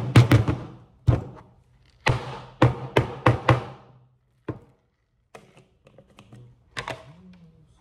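A glass jar of cereal being handled on a kitchen counter: a series of knocks and clatters as it is lifted, tilted and set down. They are thickest in the first four seconds, then two or three single knocks follow.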